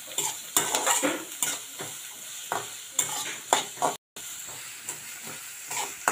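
Chopped onions sizzling in oil in a metal kadai while a metal spatula stirs them, scraping and clacking against the pan in quick irregular strokes over a steady sizzle. The sound cuts out for a moment about four seconds in.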